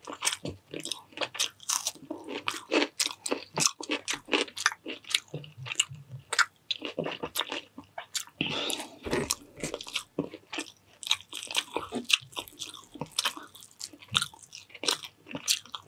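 A person chewing and biting crunchy food close to the microphone, with a dense, irregular run of crunches.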